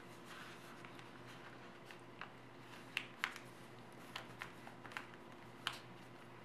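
Origami paper being folded and creased by hand: faint rustling with scattered sharp crinkles and ticks, the loudest a pair about three seconds in and another near the end, over a faint steady hum.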